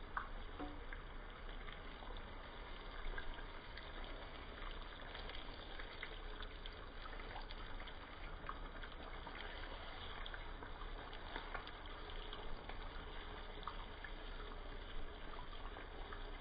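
Sliced onions and beef skirt steak sizzling in hot oil in a frying pan: a steady hiss with many small pops and crackles.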